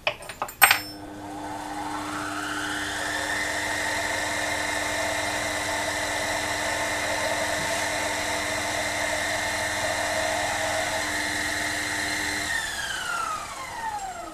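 Miniature lathe switched on with a few clicks, its motor whine rising as it spins up, then running steadily while a center drill is fed into the spinning brass part. Near the end it is switched off and the whine falls in pitch as the spindle winds down.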